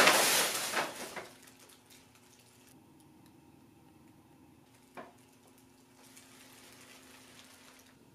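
Tissue paper rustling loudly as it is pulled out of a gift bag for about the first second, then quiet room tone with a faint low hum and a single click about five seconds in.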